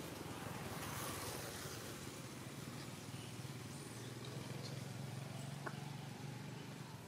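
Steady low hum of a distant engine under faint outdoor ambience, with one short click about five and a half seconds in.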